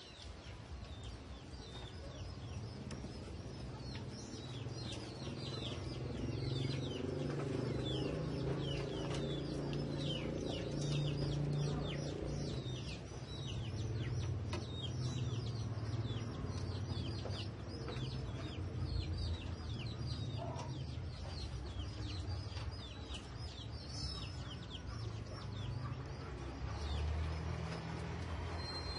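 Chickens calling: a continuous run of short, high peeps that fall in pitch, several a second, over a steady low hum.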